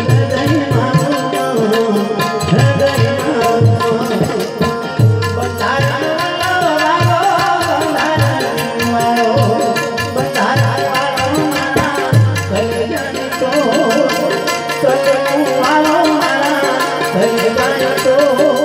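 Live Gujarati santvani devotional music: tabla strokes, with the deep bass drum prominent, under a harmonium melody.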